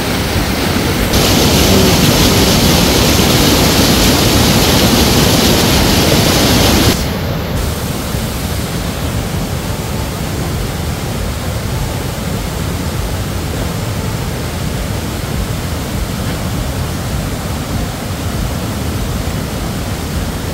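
Rushing white water of a rocky mountain river pouring through rapids and over a bamboo weir fish trap: a steady, loud rush. It is louder and hissier for the first several seconds, then drops suddenly to a softer, even rush about seven seconds in.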